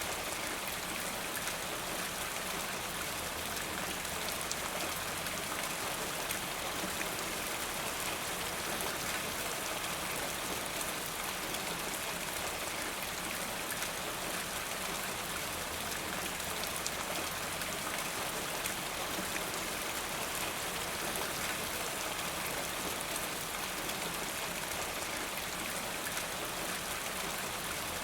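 Steady, constant rain falling, with many fine drops pattering on a surface.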